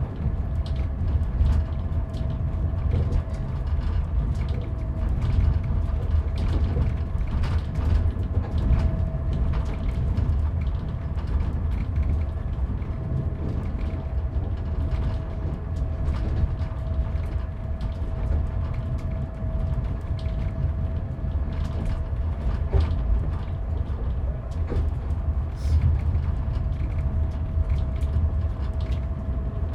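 Inside a moving train carriage: a steady deep rumble from the running train, with a constant hum and frequent irregular creaks and rattles of the carriage.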